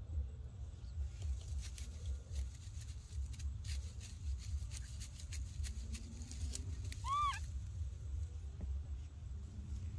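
Low, buffeting wind rumble on the microphone with scattered light clicks and rustles, and one short, high animal call that rises and falls about seven seconds in.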